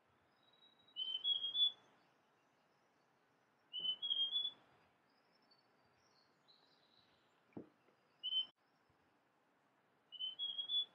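Large niltava (Niltava grandis) singing: short phrases of three or four clear whistled notes stepping up in pitch, repeated every few seconds, with one shorter single note between them. A single sharp click about seven and a half seconds in.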